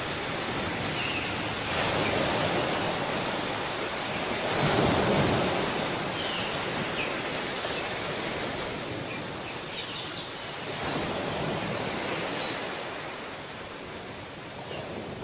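Ocean waves washing onto a beach in repeated swells, the loudest about five seconds in, then slowly easing off.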